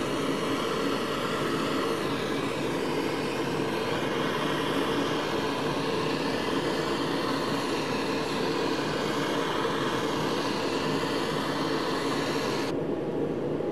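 Handheld gas torch flame hissing steadily as it heats the inner race of a classic VW Beetle swing-axle bearing, so the tight-fitting bearing can be tapped onto the axle. The hiss stops about a second before the end.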